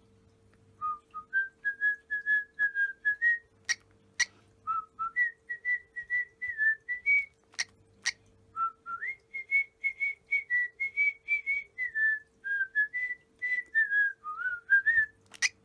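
Lutino cockatiel whistling a tune: a long run of short, clear whistled notes that step up and down in pitch, in several phrases. A few sharp clicks fall between the phrases.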